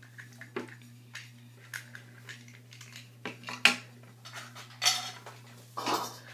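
Small plastic toy pieces clicking and knocking against a tabletop in irregular taps, with a few louder knocks in the second half.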